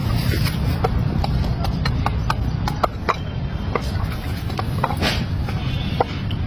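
Irregular hammer taps on the wooden planks of a boat's hull, a couple of sharp knocks a second, over a steady low rumble.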